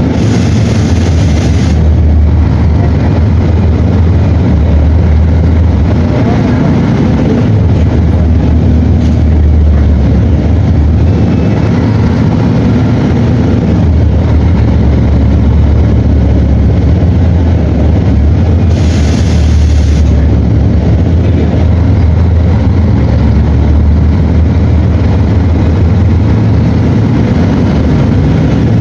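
Mercedes-Benz O-500 bus's OM 457 LA 354 hp inline-six turbo-intercooled diesel running with a steady low drone. A brief hiss sounds right at the start and again about 19 seconds in.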